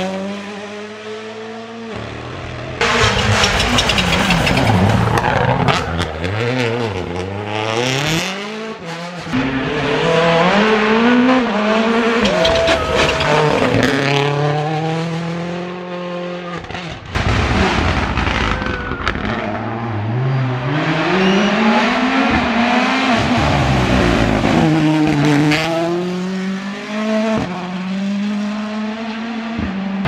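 Rally cars, a Toyota GR Yaris Rally1 among them, driven flat out through corners: engines revving up and dropping again and again with gear shifts and braking, several cars passing one after another.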